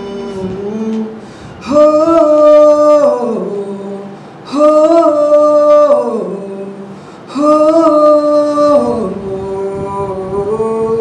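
A man singing solo: three long phrases, each held on one high note and then falling away in pitch, with a softer, lower held note near the end.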